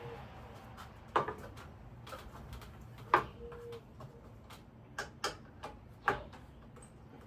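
Irregular clicks and knocks of ceiling fan parts being handled and fitted during assembly, with five sharper knocks; after the second a part rings briefly.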